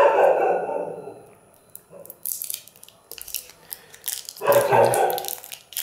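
Crinkling of the plastic wrapper on an M-seal epoxy putty stick as it is peeled open by hand. Two louder sounds stand out: one right at the start that fades over a second or so, and one about four and a half seconds in.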